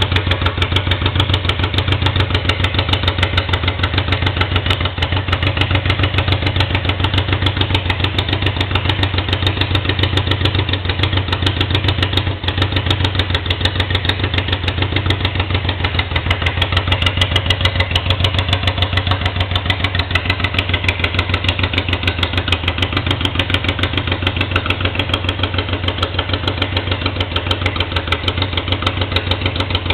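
Honda Africa Twin XRV750's V-twin engine idling steadily without its silencer, a loud, even open-exhaust pulse.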